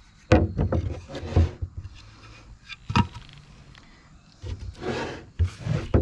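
Pallet wood knocking and rubbing as a long rail is handled and laid across a plastic drum: a clatter of knocks, a single sharp knock about three seconds in, then more thumps and scraping near the end.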